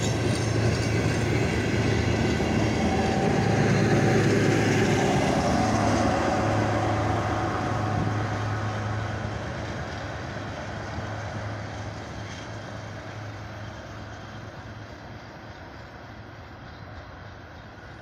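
DR1A diesel multiple unit pulling out, its diesel engine droning with a steady low hum over the rumble of wheels on the rails. Loudest about four seconds in, then fading steadily as the train recedes.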